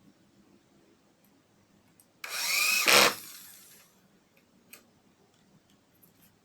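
Heavy-duty hand drill spinning a 7-inch circular saw blade in one short burst of about a second, its pitch bending up and down, then winding down.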